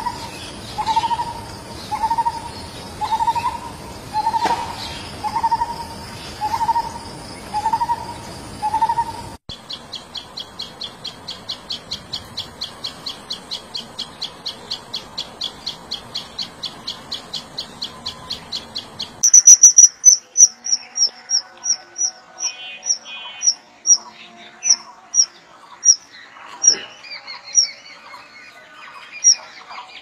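Three bird recordings in turn. First a lineated barbet's low call repeated about once a second over a high insect hum; then, from about ten seconds in, a common tailorbird's rapid high call, about five notes a second; then, from about nineteen seconds in, a kingfisher's loud, shrill high notes in a run that slows down.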